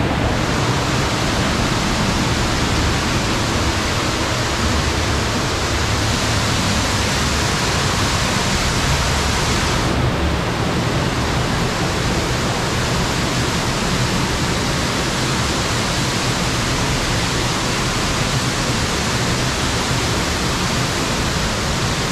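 Loud, steady rushing of a cave waterfall and stream pouring over the rock; the hiss loses some of its top end about ten seconds in.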